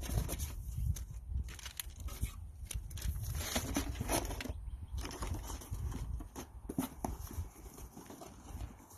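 Plastic-wrapped meat packages being handled, making irregular crinkling, rustling and light knocks over a low rumble.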